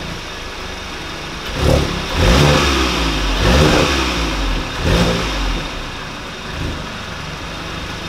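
2017 VW MK7 GTI's turbocharged four-cylinder idling, then revved up and down several times, the loudest blips a couple of seconds in, before settling back to idle. No exhaust rattle: the loose bracket under the resonator has just been tightened.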